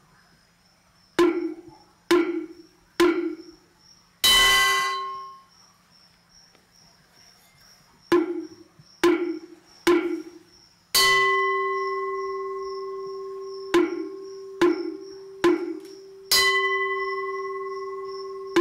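A metal bell or gong struck in a repeating pattern: three light strokes that die away quickly, then one hard stroke left to ring. The hard stroke about eleven seconds in rings on for several seconds under three more light strokes, and another hard stroke comes near the end.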